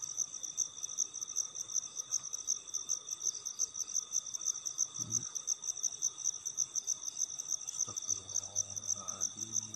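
Night chorus of crickets: a high, rapidly pulsing chirr over a steadier, thinner trill. A brief low knock about five seconds in and a faint low hum near the end.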